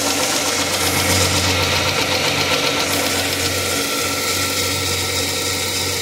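2006 Dodge Charger engine running steadily, its accessory belt turning, with the A/C switched on. The A/C compressor is seized and its pulley isn't spinning.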